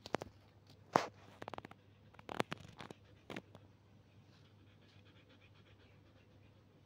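Siberian husky panting, with a run of sharp clicks and knocks over the first three and a half seconds.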